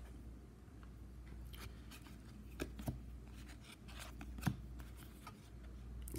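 Stack of hockey trading cards being flipped through by hand, with faint card-on-card sliding and a few soft clicks as cards snap past one another, the sharpest about four and a half seconds in.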